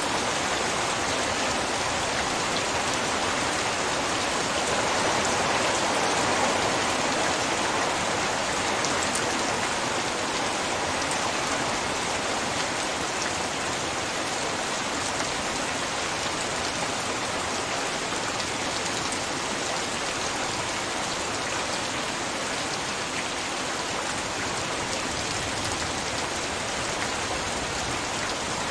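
Heavy rain pouring steadily, swelling a little about five seconds in before settling back.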